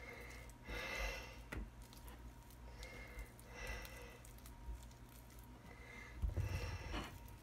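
Faint, soft scraping and squishing of a spoon spreading a creamy cream cheese and chicken filling over a flour tortilla on a plate, in a few short strokes, with a low handling bump near the end.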